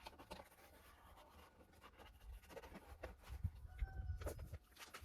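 Faint rubbing and handling sounds from wiping down a plastic car door panel to degrease it, with scattered light clicks. About four seconds in there is a brief, faint high-pitched squeak.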